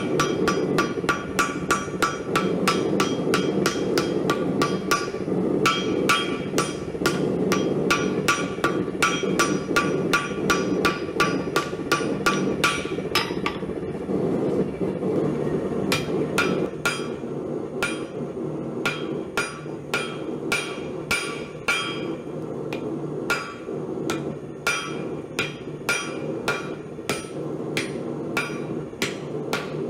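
Hand hammer striking a hot axe billet of mild steel and leaf-spring steel on an anvil, about three blows a second with a short ring after each, drawing the welded axe head out to shape. The blows pause briefly about halfway through, then resume. A steady low rushing noise runs underneath.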